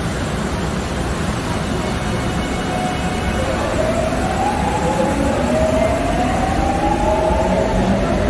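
Korail electric multiple-unit train pulling out of the station: a steady rumble of wheels on rail, with a whine from the traction motors that sets in about three seconds in and rises in pitch as the train accelerates.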